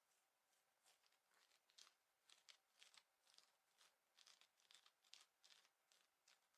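Quiet scratching on clothing fabric: a quick, irregular run of short rasping strokes, a few a second.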